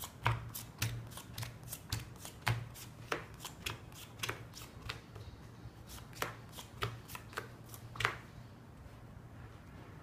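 Playing cards being dealt onto a cloth-covered table: quick, sharp snaps and slaps of the cards, several a second, stopping about eight seconds in.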